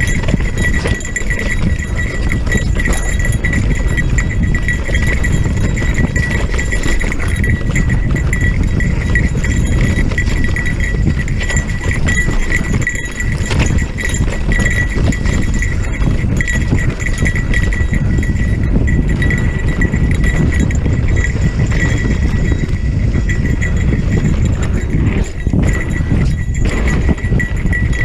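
Haibike electric mountain bike ridden over a rough trail: steady wind rumble on the bike-mounted microphone, the rattle and clatter of the bike over rocks, and a constant high whine.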